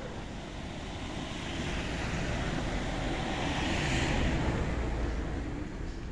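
A car passing on the street: tyre and engine noise swells to a peak about four seconds in, then fades, over a low steady traffic rumble.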